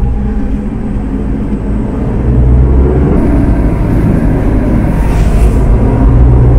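Four-wheel-drive engine working under load as the vehicle drives up and over a sand dune, heard from inside the cabin as a steady low rumble that grows louder about two seconds in.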